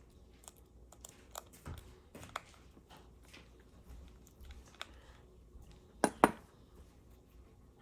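Small repair tools clicking and tapping on a phone's internal parts while screws are taken out, with scattered light ticks and two sharper clicks in quick succession about six seconds in.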